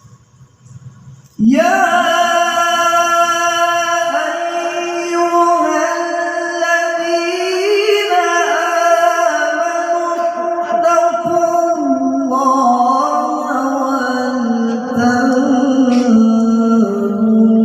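Male qari reciting the Quran in melodic tilawah style: after a short quiet pause, one long, ornamented held phrase that wavers up and down and sinks lower near the end.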